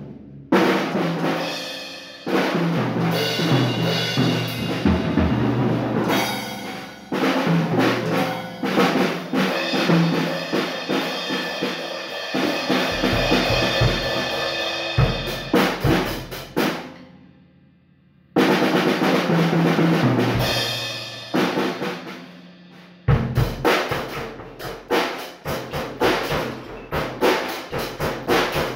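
Rebel drum kit played freestyle: bass drum, snare and toms under ringing cymbals, with fast runs of strokes. Past halfway the playing stops briefly, then comes back in with a loud hit across the kit.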